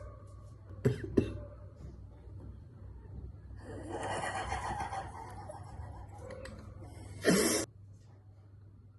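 Sneezes worked up on purpose: two short sharp ones about a second in and a loud one near the end, with breathy laughter in between.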